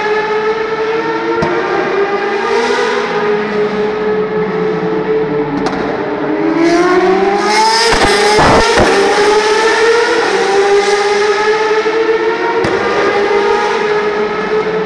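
Open-wheel race cars' engines running at high revs around the circuit, several pitches climbing and falling as they accelerate and change gear. One car goes by close about eight seconds in, the loudest moment, its pitch dropping as it passes.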